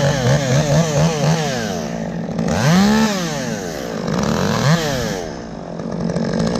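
Chainsaw revved in a run of quick throttle blips, then a few longer rises and falls in pitch, over the steady hum of another engine running.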